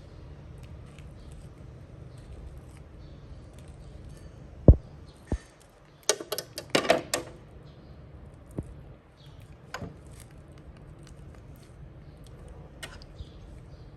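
Two sharp knocks, then a brief clatter of small clicks and rattles, with a few scattered ticks afterwards, over a low steady hum.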